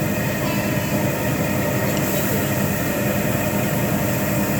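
Steady, even roar of a hibachi restaurant's grill area, the constant rush of exhaust ventilation and cooking noise with no distinct events.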